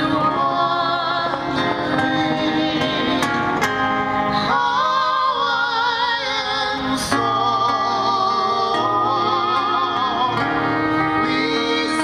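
A man singing a slow song with long, wavering held notes and instrumental accompaniment, amplified through the stage loudspeakers.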